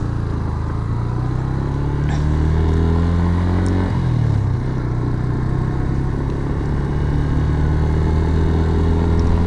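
Yamaha FZS V3's single-cylinder engine pulling under acceleration, its pitch climbing steadily. About four seconds in the pitch drops sharply at an upshift, then climbs slowly again.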